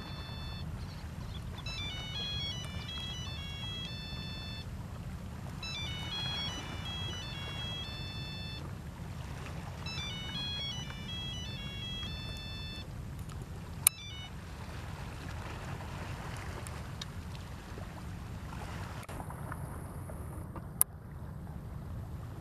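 A mobile phone ringtone: a short electronic melody of high notes plays three times in a row, then stops. Under it runs a steady low rumble, and two sharp clicks come later.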